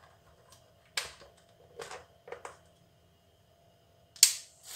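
Plastic clicks and knocks of a Black+Decker sandwich maker's lid being pressed shut and latched: a sharp click about a second in, a few softer knocks, then a louder, brief clatter near the end.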